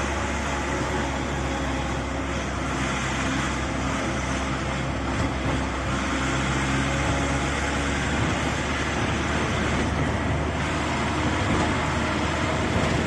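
Steady running noise of a moving motor vehicle: an even engine hum with road noise, holding level throughout without rising or falling.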